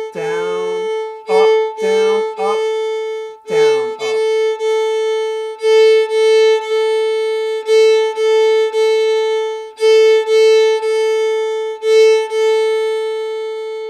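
Fiddle bowing its open A string in the Nashville shuffle pattern: one long note followed by two short notes, repeated steadily with down-up-down, up-down-up bow changes and a small accent on the first short note.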